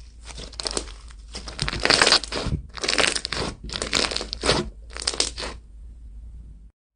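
Slime being squeezed and pressed by hand: a run of separate noisy squishes, about one every half second to second, loudest around two to three seconds in, stopping about five and a half seconds in.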